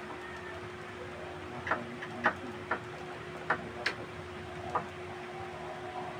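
About six sharp metallic clicks and taps, irregularly spaced over a few seconds, from handling and fitting a door knob set.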